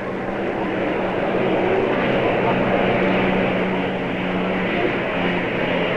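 Unlimited racing hydroplane's piston aircraft engine running flat out, a steady loud drone with the rush of spray, as the boat passes at racing speed.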